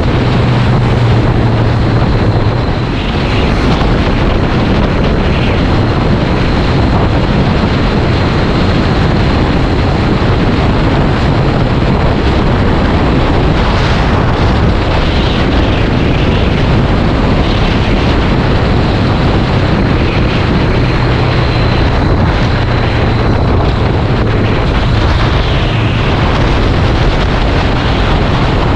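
Loud wind noise buffeting the microphone of a riding Honda CBR500R motorcycle. Its parallel-twin engine hums underneath, coming up more clearly at the start and again later on.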